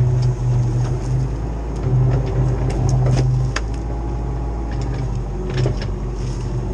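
Cat 304 CR mini excavator's diesel engine running, its pitch steady while the load on it rises and eases in stretches of about a second as the hydraulics work. Scattered sharp knocks and cracks sound over it.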